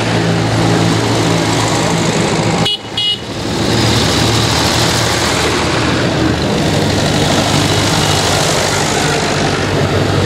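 Old tractor engines running steadily as a procession of vintage tractors drives past one after another, with a brief high horn toot about three seconds in.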